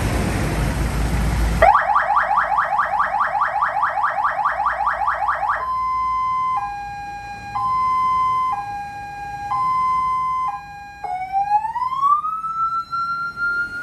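Electronic vehicle siren stepping through its tones. It opens with a loud noisy blast, then gives a fast yelp of about five rising sweeps a second. From about six seconds in it switches to a hi-lo two-tone that changes pitch about once a second, and near the end it goes into a slow rising wail that holds high.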